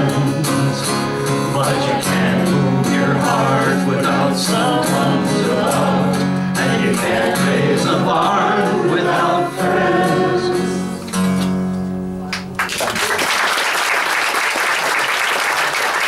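Steel-string acoustic guitar strummed under several voices singing a folk song's last chorus together. The song ends about thirteen seconds in, and the audience breaks into applause.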